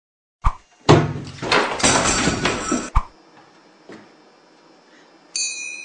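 A kitchen cabinet door clicks and knocks open, followed by about two seconds of loud clattering, and a sharp knock as it bangs shut. Near the end a short, high electronic ringing tone starts.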